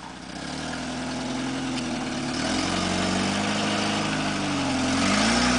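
Lifted 4x4 pickup's engine running under load while crawling over rock, its revs rising and falling, growing louder toward the end.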